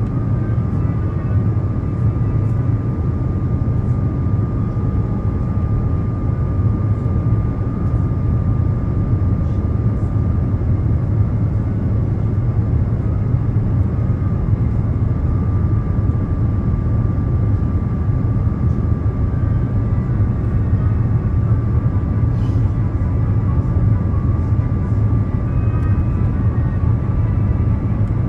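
Airliner cabin noise in flight, heard at a window seat on the descent towards landing: a steady low rumble of engines and airflow, with a thin steady tone above it.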